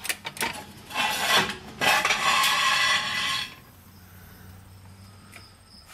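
Hydraulic floor jack being worked under a car: a few sharp metal clicks, then a loud rasping metal scrape lasting about two seconds that stops suddenly.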